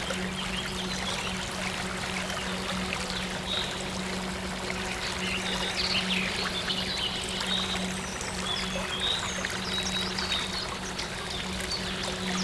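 Steady flowing, trickling water under a soft synth drone held on one low note, with scattered short high chirps.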